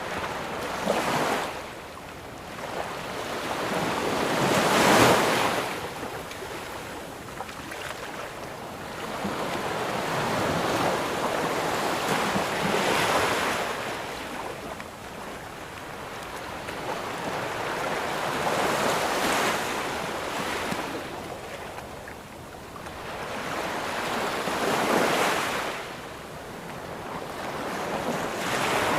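Ocean waves breaking on a beach, each one swelling up and washing back about every six to eight seconds, the loudest wave about five seconds in.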